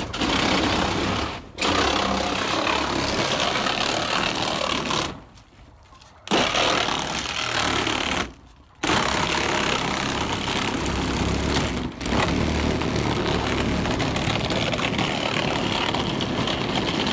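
A power tool running in long loud stretches, stopping abruptly three times for a moment before starting again.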